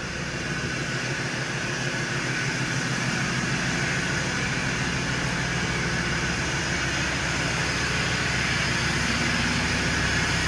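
Ford Ranger 3.2 five-cylinder turbo diesel idling cold, running through a straight downpipe with the DPF removed and the remote-controlled exhaust cutout valve open. A steady idle that grows louder over the first few seconds, then holds.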